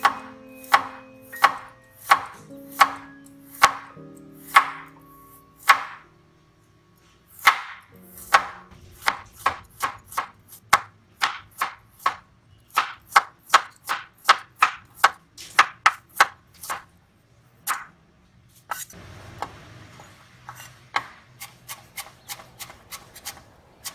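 Chinese cleaver chopping a carrot on a bamboo cutting board, each stroke a sharp knock of the blade on the wood. The knocks come at a steady pace, about one every 0.7 s at first. After a short pause they quicken to two or three a second, then pause again and return lighter and quicker near the end.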